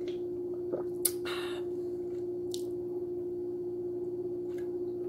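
A steady low hum with one sharp click about a second in, followed by a brief wet, squishy rustle and a few faint ticks.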